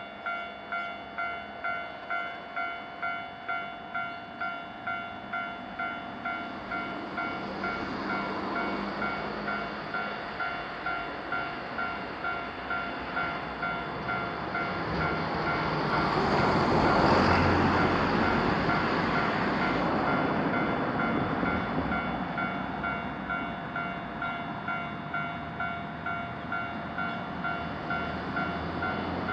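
Japanese railroad crossing alarm ringing its repeated 'kan-kan' bell, about three strokes every two seconds. A train passes through the crossing, building from about seven seconds in, loudest around seventeen seconds, then fading while the bell keeps ringing.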